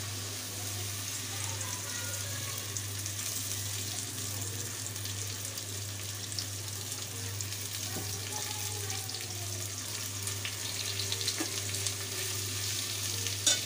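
Sliced onions sizzling in hot oil in a metal pot, the first stage of frying them to a light golden brown. Near the end a spatula stirs and scrapes them, adding small clicks over the steady sizzle.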